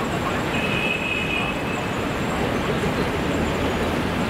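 Steady city background noise, a continuous rumble of traffic, with a brief high squeal starting about half a second in and lasting about a second.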